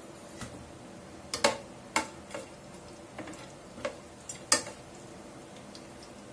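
Plastic spatula stirring whole spices frying in oil and ghee in a nonstick pot: about nine sharp, irregular clicks and ticks as it knocks the pot, the loudest about one and a half and four and a half seconds in.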